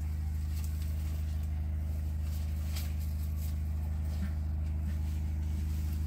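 A steady low mechanical hum, like a motor running at constant speed, with a few faint rustles over it.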